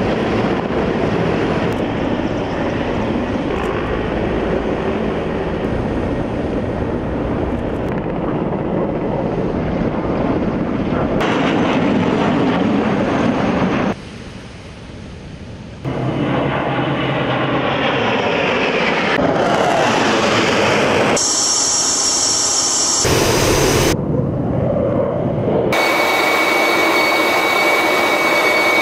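Military aircraft noise across a run of spliced shots: helicopters flying over, then aircraft engines with gliding pitch as they pass, and near the end a steady high whine heard inside a jet fighter's cockpit.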